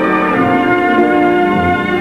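Orchestral music, with bowed strings carrying sustained notes that move from pitch to pitch.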